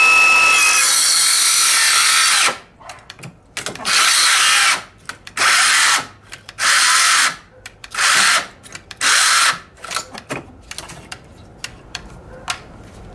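DeWalt 12V XTREME brushless circular saw running for about two and a half seconds, then starting and stopping in five short spurts, followed by a few faint clicks. The saw keeps cutting out on a knockoff 3 Ah battery that still shows charge, which the owner thinks may have got too hot.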